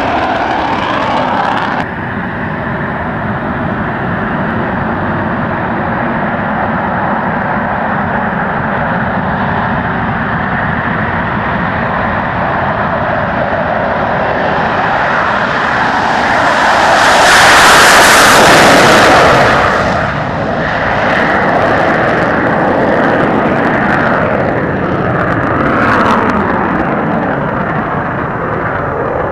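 MiG-29's twin RD-33 turbofan engines running at takeoff power as the fighter takes off and climbs away: a continuous jet roar. The sound drops suddenly about two seconds in, then swells to its loudest between about sixteen and twenty seconds in before settling back to a steady roar.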